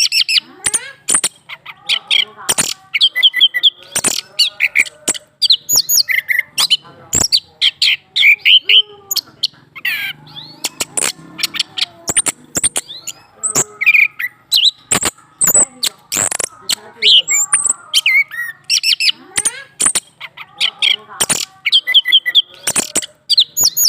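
Orange-headed thrush (anis kembang) singing fast runs of chirps and warbled phrases, mixed with frequent sharp clicks; the male is in breeding mood, set off by a female placed below its cage.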